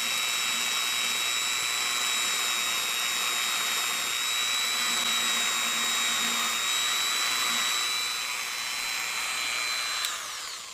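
Grizzly detail belt sander motor and belt running with a steady high whine. Just after ten seconds it is switched off and the whine falls in pitch as it winds down.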